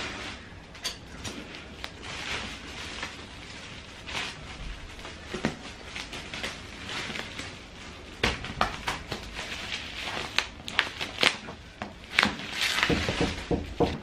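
Plastic bubble wrap rustling and crinkling as it is pulled off a cardboard box, with a denser run of sharp crackles and clicks in the second half.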